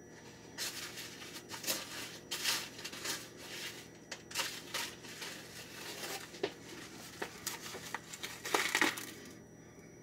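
Dry stuffing-mix crumbs crunching and rustling on a paper plate as chicken breasts are pressed and turned in them, in irregular crackly bursts, loudest near the end.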